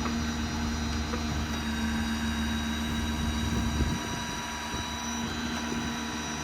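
Hydraulic winch on a Stellar 7621 service crane running, a steady whine over the Ford F-550's diesel engine idling. The low rumble drops away about four seconds in.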